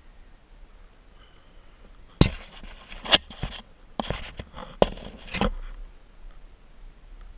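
Rough scraping and rubbing against the rock face as a climber moves up it: a run of harsh scrapes starting about two seconds in and lasting about three seconds, three of them sharp and loud.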